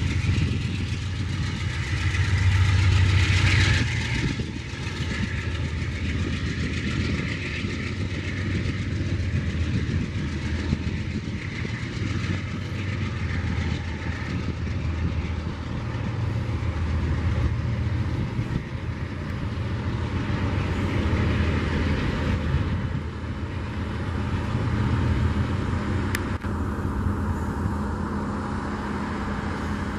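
Amtrak GE P42DC diesel locomotive working under throttle as it pulls a passenger train away, its engine drone loudest in the first few seconds, then the stainless-steel passenger cars rolling past on the rails with a steady rumble.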